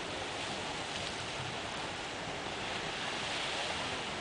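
Steady wash of small lake waves along the shore, mixed with wind on the microphone.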